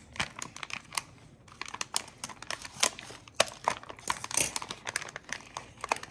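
A toy blind-bag wrapper being crinkled and torn open by hand: a run of irregular crackles and rustles.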